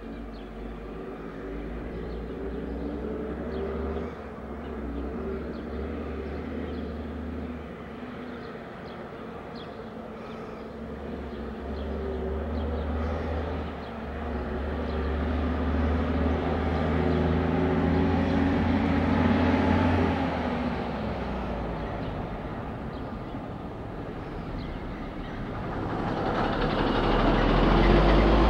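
A motor vehicle's engine running: a low hum that grows louder over the middle, fades, and swells again near the end, like vehicles passing.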